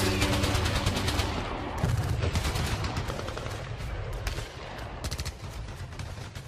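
Battle gunfire: many shots crackling in rapid bursts, slowly growing fainter, as background music dies away in the first second or so.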